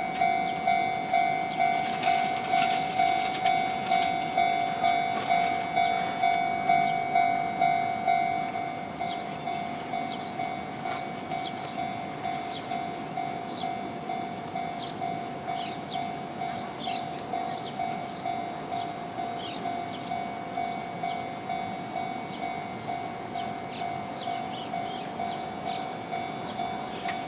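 Japanese railway level-crossing warning alarm ringing, a repeated ding of one pitch about twice a second. It drops in loudness about eight seconds in and keeps ringing.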